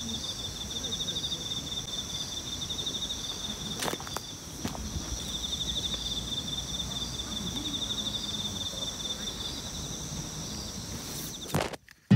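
Insects trilling outdoors in a fast, steady pulse, with a second, higher band of song above it; the trill pauses briefly about four seconds in, where two short clicks sound. The sound cuts off just before the end.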